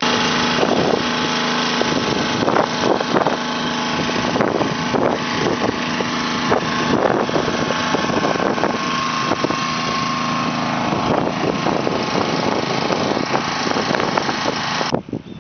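Small gasoline engine-driven water pump running steadily up close, pumping water through its hose into a water-filled AquaDam barrier.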